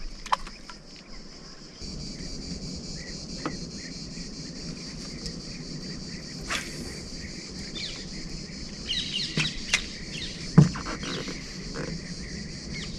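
A steady high chorus of insects such as crickets chirring, with a few scattered clicks and knocks, the loudest near the end.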